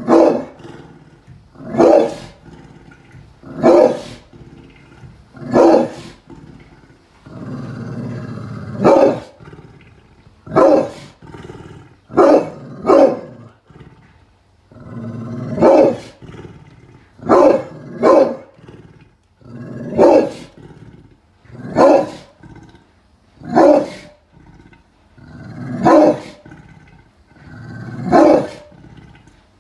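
Pit bull barking deeply, single barks about every two seconds and now and then two in quick succession, with low growling between barks.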